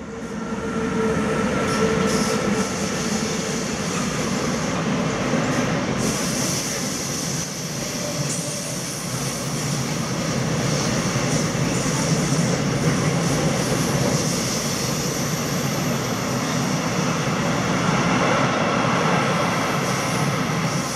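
Freight train of tank-container and swap-body wagons rolling past on a curve: steady wheel and rail noise, with thin wheel squeal from the curved track in the first few seconds and again near the end. The sound fades in quickly at the start.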